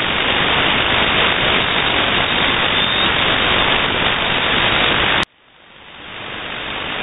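Shortwave radio static: steady hiss from an SSB receiver tuned to The Pip's 3756 kHz channel between voice transmissions. About five seconds in a click cuts the hiss off sharply, and it then swells gradually back.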